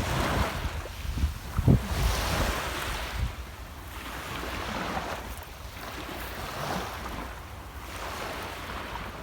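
Sea waves washing onto the shore, the hiss swelling and ebbing every couple of seconds. Wind buffets the microphone with low rumbles, strongest near the start.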